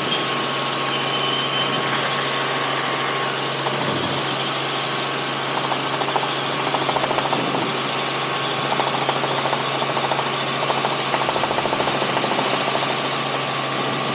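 Steady in-cabin drone of a Robinson R44 helicopter in powered flight: its piston engine and main rotor running evenly under wind noise. A faint rapid flutter comes and goes through the middle.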